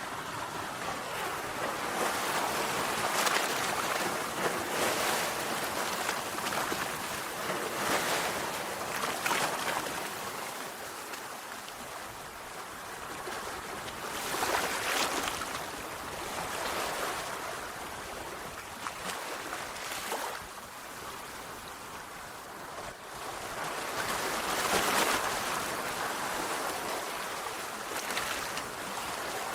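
Sea waves breaking and washing on a shore, a continuous surf hiss that swells with each wave, the loudest crests coming several seconds apart.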